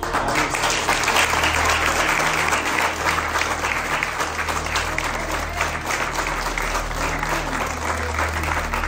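A roomful of people applauding, the clapping starting suddenly at the end of a speech and going on steadily.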